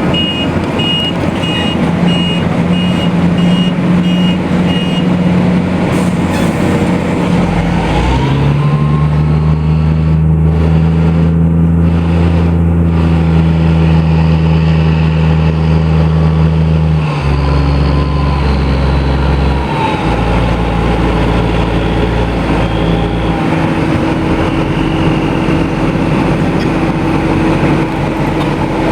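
BELAZ off-highway haul truck's diesel engine running, with its reversing alarm beeping steadily for the first five seconds or so. About eight seconds in, the engine rises in pitch and holds there under load for about nine seconds, then drops back to a lower, steady speed.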